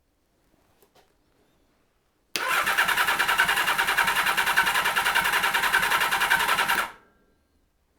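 Kawasaki Z1300's inline-six engine turned over on its electric starter for about four and a half seconds, an evenly pulsing cranking sound that starts a couple of seconds in and cuts off. The engine does not catch.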